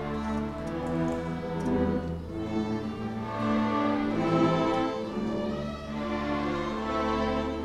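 Student string orchestra of violins, violas, cellos and double basses playing a piece in long bowed notes over a held bass, swelling and easing in loudness.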